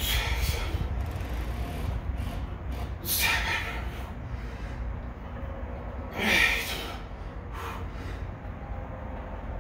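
A man breathing out hard three times, about three seconds apart, as he presses a barbell on a bench, one forceful exhale per rep. A steady low hum runs underneath.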